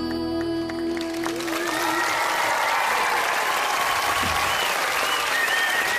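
The song's last held note ends about two seconds in, as a large studio audience breaks into applause and cheering.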